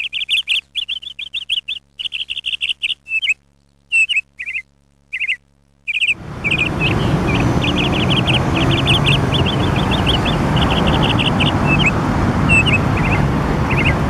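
Small songbirds chirping in rapid runs of high, quick trills, with short pauses between runs. About six seconds in, a steady outdoor background noise starts under the birdsong and carries on.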